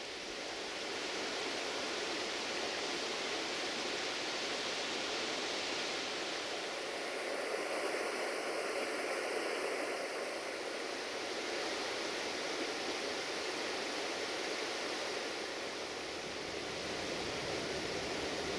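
Steady rush of a fast-flowing river over rocks, an even hiss with no distinct events. A faint high-pitched hum joins in briefly in the middle.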